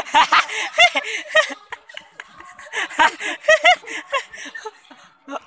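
Men laughing in quick repeated bursts mixed with short calls, in two spells: one in the first second and a half, another from about three seconds in.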